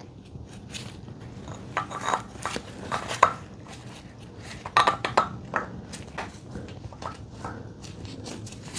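Irregular metallic clicks and clinks of a seal-press tool being slid into place and fitted by hand at the front of the engine, with a few sharper ringing knocks scattered through.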